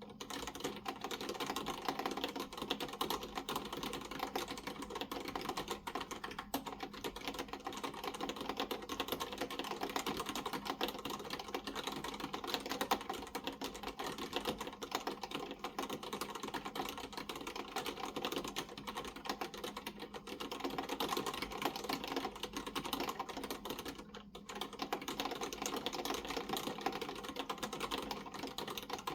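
Steady, fast typing on a Maltron L90 ergonomic keyboard with Cherry MX Black linear switches: a dense clatter of keystrokes, with a short lull about five seconds before the end.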